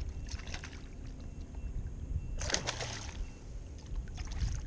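A hooked speckled trout thrashing at the surface beside a kayak, giving a few short splashes, the loudest about two and a half seconds in, over a low rumble of wind on the microphone.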